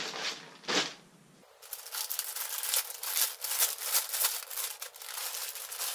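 White plastic poly mailer bag being pulled and torn open by hand: a brief rustle, then from about a second and a half in a dense, continuous crinkling crackle of the plastic.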